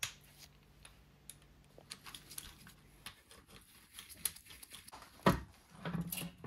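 Socket ratchet clicking in short bursts as the gearbox-to-engine bolts on a Honda ST1100 V4 are undone. A sharp knock about five seconds in, then metal scraping as the gearbox casing is slid off the back of the engine.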